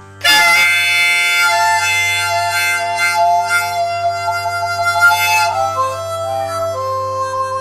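Harmonica played with cupped hands: a loud chord comes in sharply about a quarter second in, then a slow run of notes with some quick trills, settling on a long held note near the end. A steady low drone sounds underneath.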